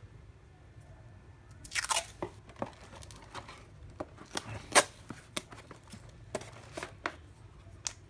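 Cardboard box and roll of masking tape being handled: a string of short crunching clicks and rustles, with one longer scraping sound about two seconds in.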